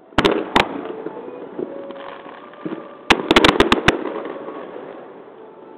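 Aerial firework shells bursting: two sharp bangs just after the start, then a rapid volley of about six bangs about three seconds in, each followed by a rolling, echoing rumble that fades away.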